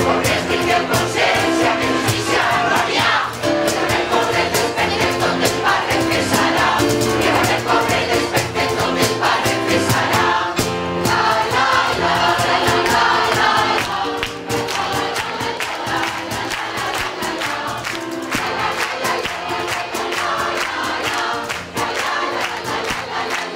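Mixed choir of men's and women's voices singing together, holding sustained chords that move from note to note, slightly softer in the second half.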